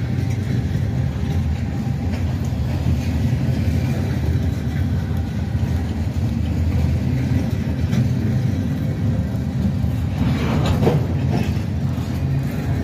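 Train running by with a steady low rumble, and a short higher-pitched sound about ten seconds in.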